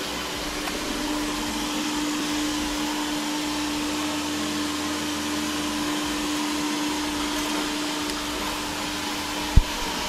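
360 S6 robot vacuum cleaner running on a parquet floor, a steady whir of its suction motor and brushes with a steady hum, as it sucks up scattered dirt and cat litter. A single short thump near the end.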